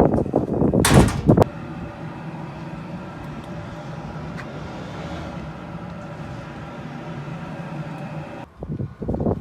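A loud rattling clatter in the first second and a half, then a steady low mechanical hum that cuts off abruptly near the end, followed by another short clatter.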